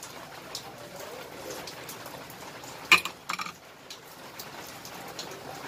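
Broth simmering in a wok with a steady, faint bubbling hiss. One sharp click comes about three seconds in, followed by a few small clicks.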